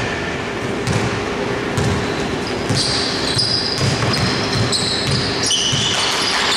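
A basketball being dribbled on a hardwood court, thudding about twice a second. From about three seconds in, sneakers squeak sharply on the floor as players cut and stop.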